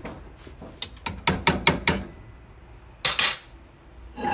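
Metal ladles clinking and knocking against each other and the rim of a white soup pot while soup is ladled out. There is a quick run of about six sharp clinks about a second in, then a louder clatter about three seconds in, and another knock near the end.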